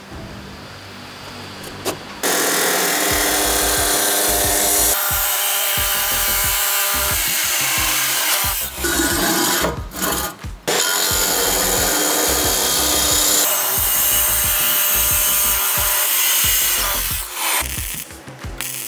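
An electric power tool working wood: it starts about two seconds in and runs loud and steady under load, with a few brief breaks, until shortly before the end. Background music plays throughout.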